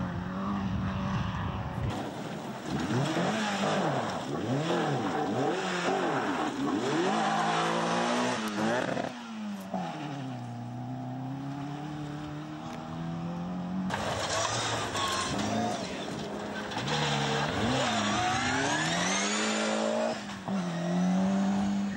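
Rally cars driven flat out past the camera one after another on a gravel stage, engines revving up and dropping back again and again through gear changes and lifts.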